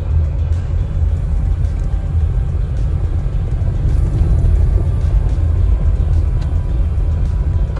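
Subaru Crosstrek driving on a dirt road, heard from inside the cabin: a steady low rumble of tyres on the gravel surface, with faint small ticks.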